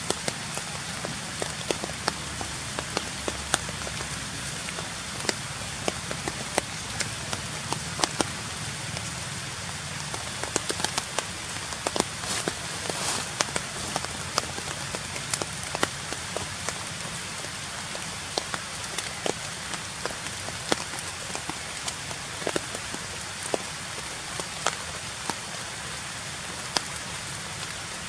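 Steady rain pattering on forest leaves and leaf litter, an even hiss dotted with irregular sharper ticks of single drops.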